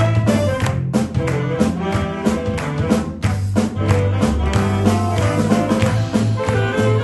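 Big band playing swing-style jazz: brass over a steady beat from the drum kit and a low bass line.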